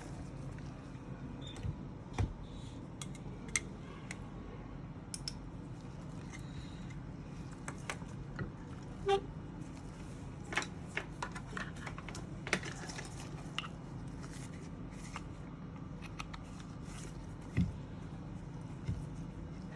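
Scattered light clicks and taps of small tools and parts being handled on a repair bench, over a steady low hum.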